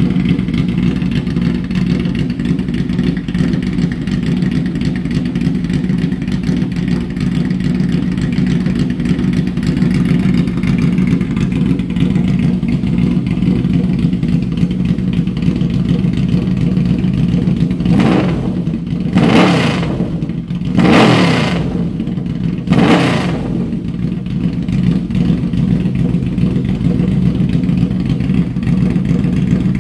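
Yamaha V-Max V4 engine idling steadily through a Voodoo aftermarket slip-on exhaust. Past the middle it is revved three times in quick succession, each rev rising and falling, then it settles back to idle.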